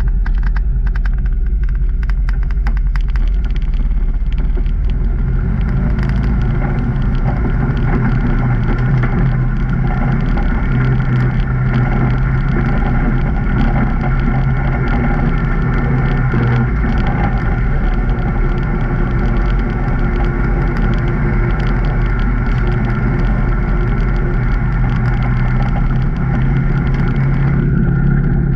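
2019 Can-Am Maverick Trail 800 side-by-side's Rotax V-twin engine running steadily while driving on a trail, its note holding a fairly even pitch with small rises and falls. A light clatter of ticks comes in over the first few seconds.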